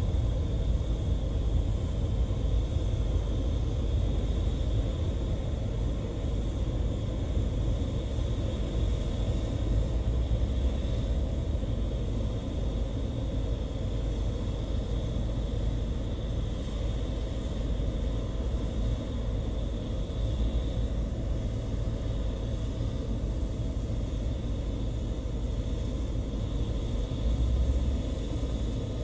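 Boeing 777-300ER's GE90 jet engines at taxi idle: a steady low rumble with a faint high whine held throughout.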